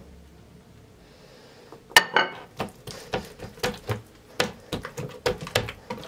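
A porcelain plate is set down with a sharp clink about two seconds in. Then comes a run of soft pats and taps, about three a second, as hands press and stretch oiled dough out on a wooden cutting board.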